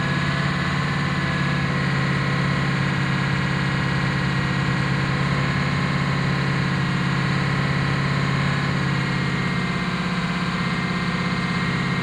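2004 Ford F-250's 6.0 L Power Stroke turbo-diesel V8 running at a steady idle, its tone shifting slightly about nine seconds in.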